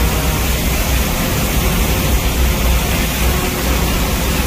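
Hurricane-force wind and driving rain as a loud, steady rush, with gusts buffeting the microphone in a heavy, uneven low rumble.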